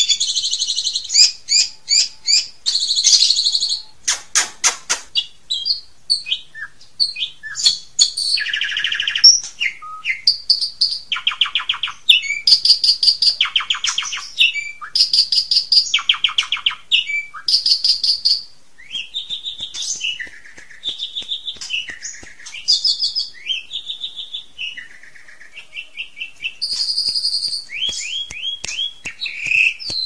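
Asian pied starling (jalak suren) singing a long, varied song. It strings together whistled glides, harsh chatters and fast rattling trills, with short pauses between phrases. This is the full mixed repertoire, or 'isian', that keepers prize.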